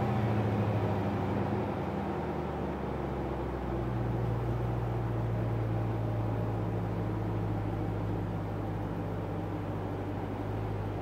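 Stock 2014 Jeep Grand Cherokee SRT's 6.4-litre HEMI V8 dropping back from a rev and then settling into a steady idle from a few seconds in.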